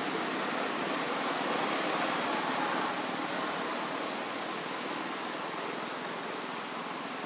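Steady rushing background noise with no distinct events, easing slowly in level.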